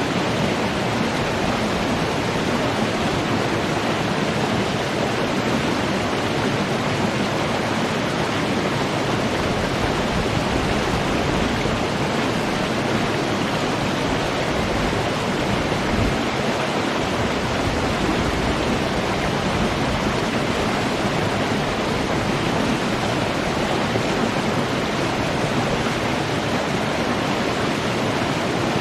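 Running water giving a steady, even rush that does not change.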